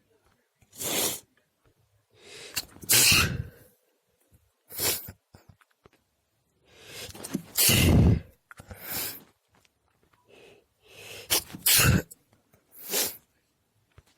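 A person sneezing quietly over and over, about eight quick sneezes a second or two apart. A few are led by a drawn-in breath.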